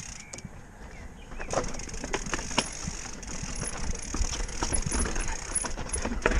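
Mountain bike rolling over a rocky trail: the rear hub ratchets with rapid ticking as the rider coasts, the tyres crunch on stones and the bike rattles. The sound grows louder about a second and a half in, and a hard knock comes at the end.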